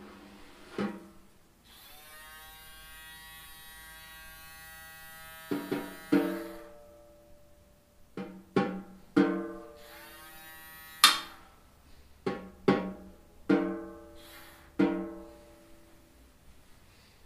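Snare drum played experimentally: a steady electric buzz, like a small motor held against the drumhead, drones for a few seconds, then about ten separate strikes and taps on the drum, each with a short pitched ring.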